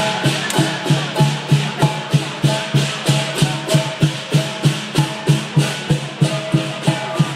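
Chinese lion dance percussion: drum and clashing cymbals beating a steady, even rhythm, about three strokes a second.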